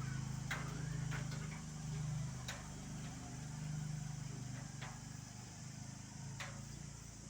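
A steady low mechanical hum, with half a dozen sharp clicks or taps scattered through it.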